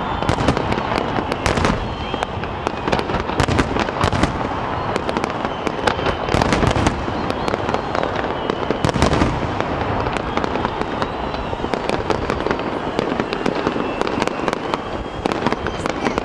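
Fireworks display: a continuous stream of bangs and crackles from shells bursting, with a few louder bangs among them.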